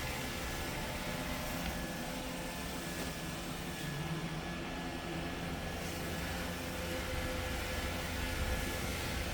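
Roomba robot vacuum running, a steady whirring hum with no breaks.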